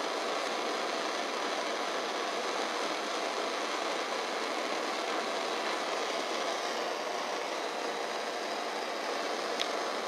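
Acetylene torch flame hissing steadily as it heats an aluminum evaporator tube for brazing. A faint click near the end.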